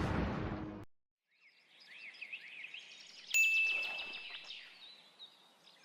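The tail of a loud noisy burst that cuts off just under a second in. After a moment of silence, faint birds chirp, with one bright ding a little past three seconds.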